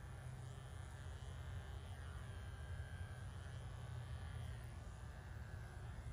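Corded electric horse clippers buzzing with a steady low hum as they cut through a miniature horse's long coat.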